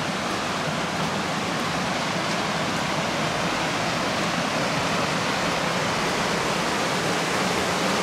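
Steady rushing of a small waterfall and creek, growing a little louder near the end.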